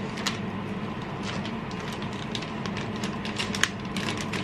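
Steady low hum with an even hiss, dotted with many small light clicks and taps, one sharper click about three and a half seconds in.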